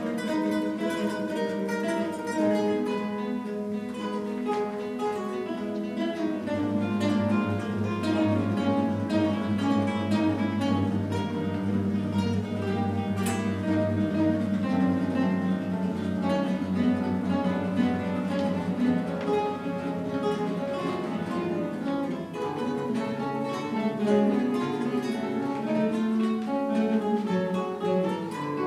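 Guitar ensemble playing together: many plucked guitars in several parts, with a steady bass line joining about six seconds in.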